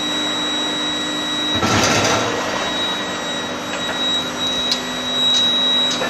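Steady electrical hum with a constant high tone from a tempering furnace line. A louder noisy stretch of about a second comes roughly a second and a half in, and a few light clicks follow.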